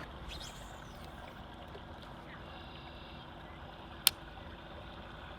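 Steady rush of water from a small waterfall spill-off, with a single sharp click about four seconds in.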